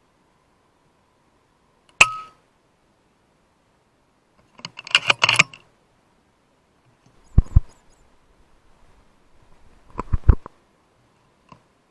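FX Impact M3 .22 PCP air rifle in use: sharp metallic clicks and clinks from shots and from its action being cycled. A single sharp click with a brief ring comes about two seconds in, a quick cluster of clicks follows around five seconds, and further sharp clicks come near the middle and again about ten seconds in.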